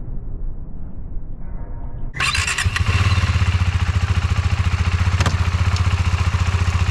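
KTM 390 Duke's single-cylinder engine cranks and starts about two seconds in, then runs with a fast, even pulsing beat.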